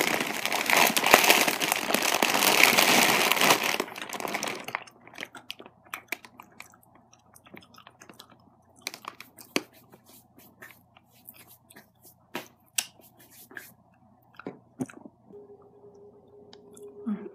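Loud rustling and handling noise close to the microphone for about the first five seconds, then quiet chewing of penny candy with scattered sharp mouth clicks and crunches.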